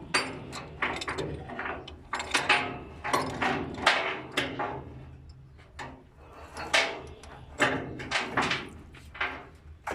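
A string of irregular knocks and clanks, about fifteen over ten seconds, some in quick pairs, over a faint low steady hum.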